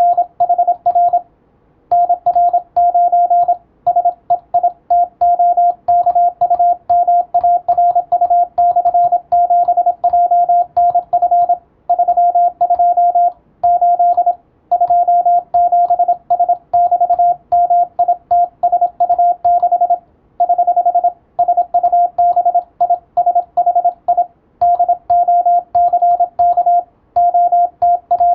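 Morse code (CW) sent as a single steady tone keyed on and off in short dots and longer dashes at a brisk pace, with brief pauses between groups.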